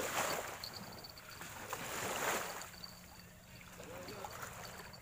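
Wind gusting on the microphone in two swells, near the start and about two seconds in, over a faint, broken, high-pitched chirring.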